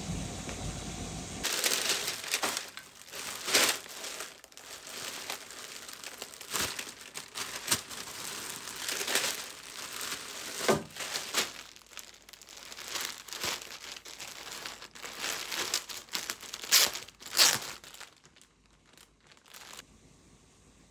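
Tissue paper and a clear plastic garment bag crinkling and rustling as a clothing parcel is unwrapped by hand, in irregular bursts with a few sharper crackles. It dies down to faint handling near the end.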